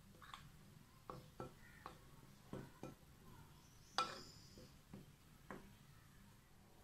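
Metal spoon clinking against a glass mixing bowl while stirring dry flour mix: about nine light taps, the loudest about four seconds in with a brief ring.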